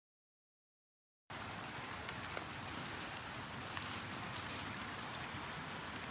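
Complete silence for about the first second, then a steady, even hiss of outdoor background noise with a few faint clicks.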